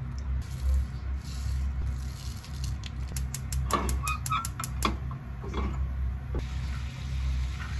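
Water poured into a small metal pan, then a gas stove's igniter clicking rapidly, about six ticks a second for a second and a half, as the burner is lit. A steady low hum underlies it all.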